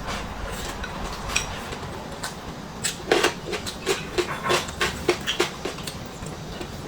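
Close-miked chewing of crunchy food, a quick run of crisp crunches several times a second about halfway through, with a few single crunches before it.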